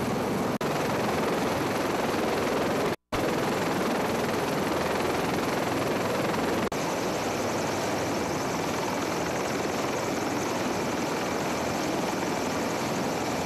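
U.S. Navy MH-53E Sea Dragon heavy-lift helicopter running on the ground with its rotors turning: a loud, steady rush of rotor and turbine noise. The sound drops out for an instant about three seconds in.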